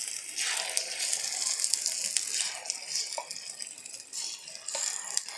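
A metal spoon clinks and scrapes against a plastic jug and a metal mold pan as egg batter is scooped and ladled into the pan's holes, over a steady sizzle of batter frying in hot oil. There are scattered sharp clicks and a couple of brief ringing taps.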